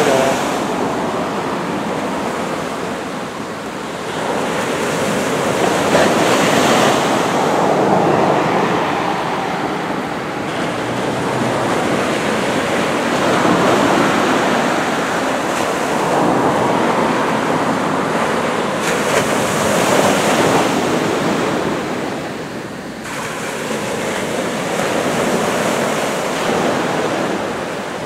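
Ocean surf: waves breaking and washing in, a steady rushing that swells and ebbs every several seconds.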